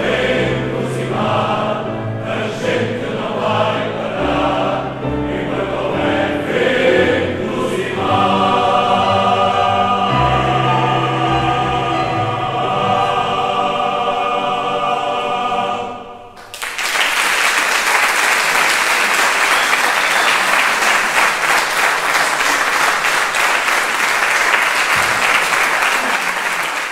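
Male choir singing, ending on one long held chord. About sixteen seconds in the singing stops and audience applause breaks out and carries on.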